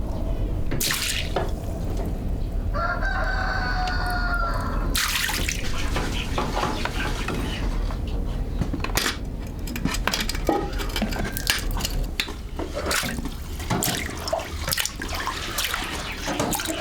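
A rooster crows once, a call of about two seconds beginning about three seconds in, over continual knocks and clatter with a water-like splashing.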